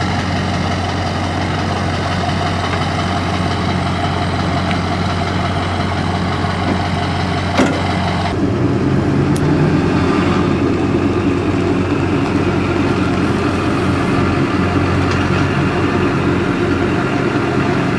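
Pickup truck engine idling steadily, with a single sharp click about seven and a half seconds in.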